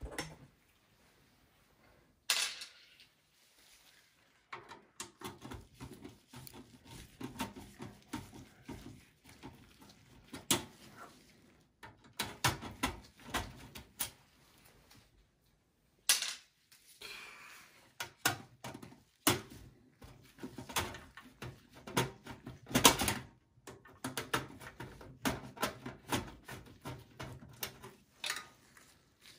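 Screwdriver and gloved hands working the screws of an 80 mm rear system fan in a desktop PC's steel chassis: irregular small clicks, taps and rattles of screws, tool and fan against sheet metal, with brief pauses, the sharpest click about 23 seconds in.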